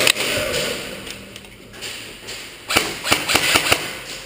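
Airsoft guns firing: one sharp shot at the start, then a quick string of about six shots late on.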